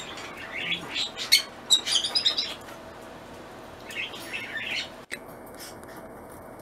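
Pet cockatiels chirping: a run of short, high chirps in the first two and a half seconds, then another brief bout about four seconds in.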